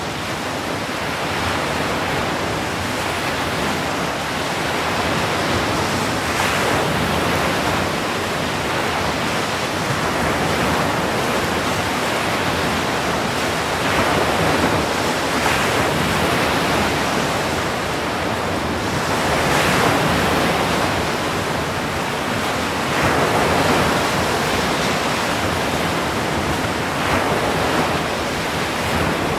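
Ocean surf breaking on the shore: a continuous rushing wash of foaming white water that swells louder every few seconds as each wave breaks.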